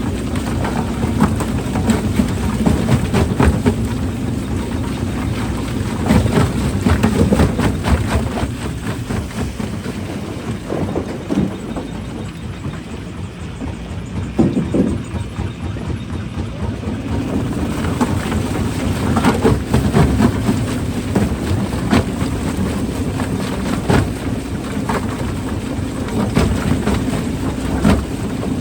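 Rock-crushing machinery running with a steady heavy hum, and rocks knocking and clattering through it over and over; it goes somewhat quieter and duller for a few seconds in the middle.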